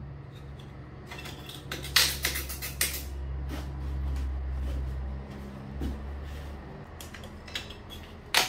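Scattered clicks and knocks of tile-setting work as a large polished porcelain wall tile is pressed and worked into place, bunched about two seconds in and again near the end, over a steady low hum.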